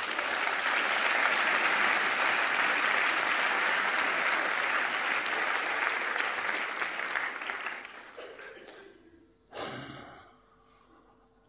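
Theatre audience applauding for about eight seconds, then dying away, followed by a single short sound about ten seconds in.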